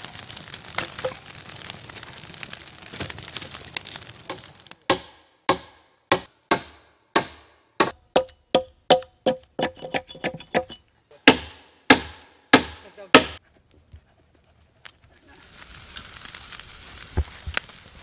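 Campfire crackling, then a hatchet chopping into a log: a run of about twenty sharp strikes, some with a brief ringing, quickest in the middle and spacing out toward the end.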